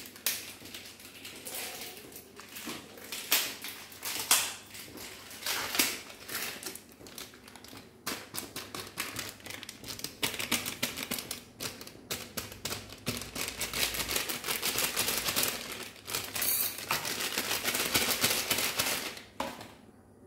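Plastic flour packet crinkling and rustling as it is handled, torn open and shaken out over a steel plate, with many sharp clicks and crackles.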